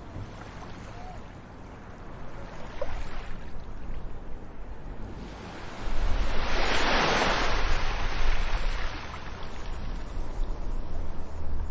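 Ocean surf: a steady wash of water, with a wave breaking about halfway through, the loudest moment, then hissing as it runs up and recedes.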